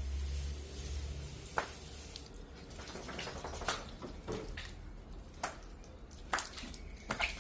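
Scattered sharp metallic clinks and knocks, as of metal parts being handled during air conditioner cleaning, after a low hum that stops about a second in.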